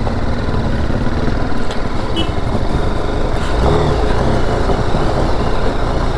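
BMW G 310 GS single-cylinder motorcycle riding slowly over a rough, stony dirt track, its engine running under a steady rushing noise. There are a few short knocks, and the engine note briefly rises and falls a little past halfway.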